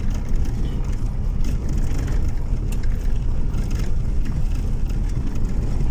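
Steady low rumble of a car driving slowly over a rough unpaved gravel road, mostly tyre and road noise heard from inside the car, with a few faint scattered ticks.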